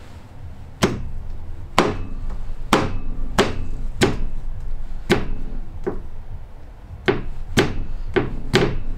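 A hand slapping down on a con rod again and again to tap a new piston, rings on, into its finned cylinder barrel on a Fiat 500 engine. About a dozen sharp knocks, each with a short ring, start about a second in and come roughly one to two a second.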